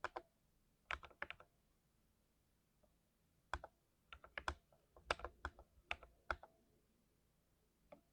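Keys of a mechanical keyboard with lubed switches being typed in short irregular bursts. The keystrokes are crisp, with a quick run of strokes in the middle and single presses near the start and end.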